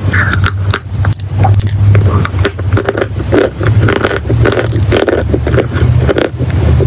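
Close-up crunching and crumbling of chalk and clay: a dense, irregular run of sharp crackles over a steady low rumble.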